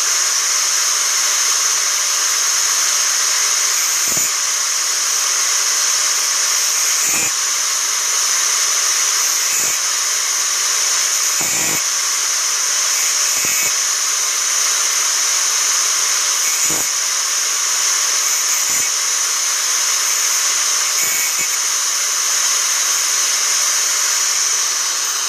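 Angle grinder running steadily with a high whine, its disc sharpening the teeth of an old saw blade; a brief low knock comes every two to three seconds.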